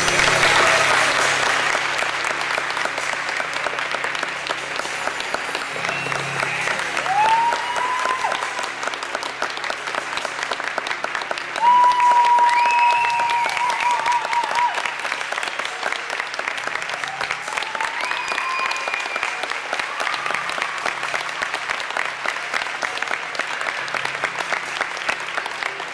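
Audience applauding steadily in a large hall, with a few high calls standing out above the clapping, the loudest about twelve seconds in.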